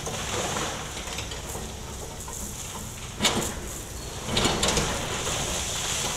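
Demolition excavator working a concrete building with its saw attachment: the engine runs steadily under knocking and scraping of concrete and debris. There is a sharp crack about three seconds in and a clattering burst about a second later.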